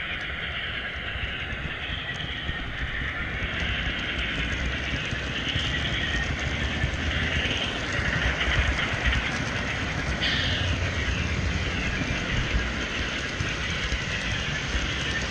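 HO-scale model train running along the layout track, heard close up at track level: a steady rolling rumble and rattle of wheels and drive on the rails.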